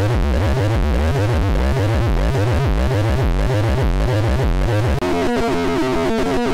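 Finegear ModMix analog mixer in a no-input feedback patch, modulated by its envelope follower, making loud, dense, rhythmic noise with heavy bass pulses. About five seconds in it cuts out for an instant and switches to a thinner, higher warbling loop as the knobs are turned.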